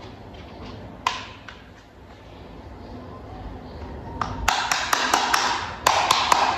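Hard plastic toy parts clicking and tapping as they are handled: one sharp click about a second in, then from about four seconds in a dense, louder run of clicks and rattling.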